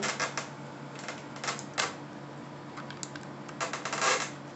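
Irregular small clicks and taps of an Allen key turning a long screw down into a brass fitting in the foam tail of an RC airplane, with a louder run of clicks about four seconds in.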